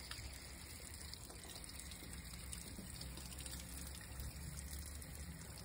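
Faint, steady running water from an outside tap flowing into a boiler plate heat exchanger and trickling out onto a drain grate. The plate is still partly blocked with sludge, so the water is slow to come through the other side.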